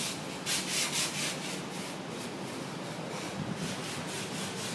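Quick rhythmic scraping strokes, several a second, for about the first second and a half, then an even hiss.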